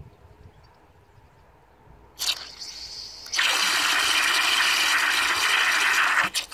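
Brass high-pressure float valve refilling an empty cast-iron toilet cistern. Water comes on about two seconds in, then runs at full flow from about three seconds in as a loud, steady hissing jet splashing into the tank, and drops off sharply just before the end.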